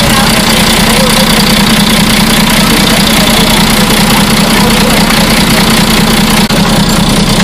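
Vehicle engine idling close by, a loud, steady running rumble.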